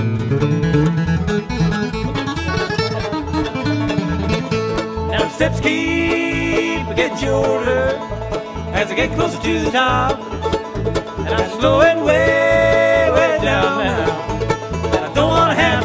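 Bluegrass music: banjo and guitar picking over a steady beat, with long held melody notes.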